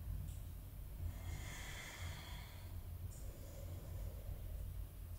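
A woman taking one long, audible breath about a second in, held in a yoga lunge, over a low steady hum.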